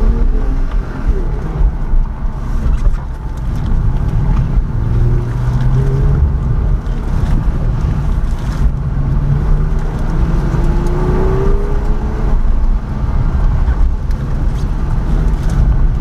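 Vehicle engine running under a heavy low rumble, its pitch rising and falling several times as the revs change.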